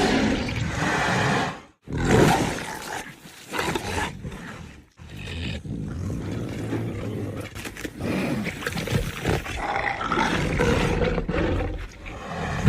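Allosaurus dinosaur sound effects: a string of loud roars and growls that break off briefly about two seconds and five seconds in, followed by one long drawn-out roar lasting about seven seconds.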